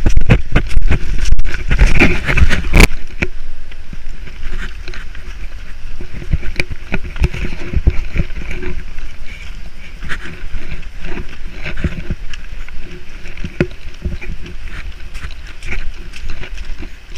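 Footsteps of a person walking, with wind buffeting the camera microphone; both are loudest in the first three seconds.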